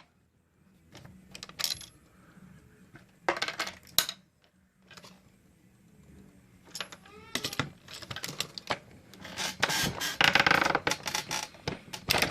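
Brass 9mm cartridge cases and metal reloading-press parts clinking and clicking as a round is run through a progressive press, with a longer stretch of clatter near the end.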